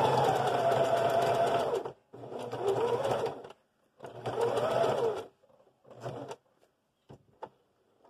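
Singer electric sewing machine zigzag satin-stitching an applique edge: a steady run for about two seconds, its motor whine rising and falling with speed, then three shorter bursts of stitching with pauses as the fabric is pivoted around the curve. A few faint clicks follow near the end.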